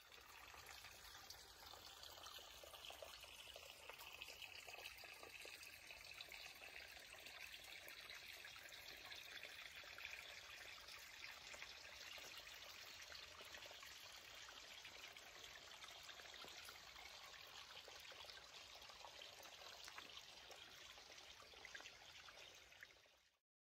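Very faint, steady hiss of water, near silence.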